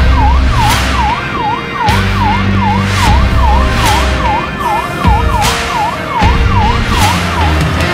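Fire pump truck's electronic siren on a fast yelp: a rapid, even down-and-up warble, about two and a half sweeps a second, which stops shortly before the end. Beat-driven background music with heavy bass runs underneath.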